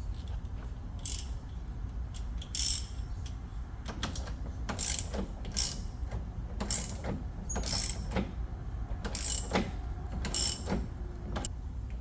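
Hand ratchet wrench clicking in short strokes, about one a second, as the axle nut on a golf cart's front wheel hub is run down to snug.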